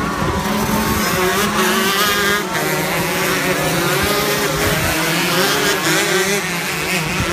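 Shifter kart's two-stroke engine running hard, its pitch rising and falling repeatedly as it revs and shifts through the gears.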